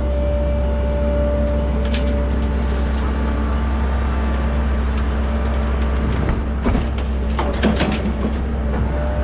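Diesel engine of a dump truck running steadily, with a few knocks and rattles about two seconds in and again near the end.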